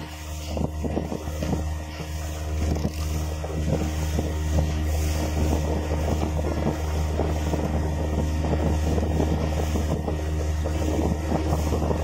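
Small motorboat's outboard motor running at a steady cruising speed, with a constant low hum, water splashing against the hull over the chop, and wind on the microphone.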